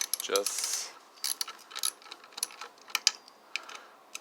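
Irregular sharp clicks of a ratcheting hand tool being worked on the screws of a garbage disposal's bottom housing, a few clicks a second.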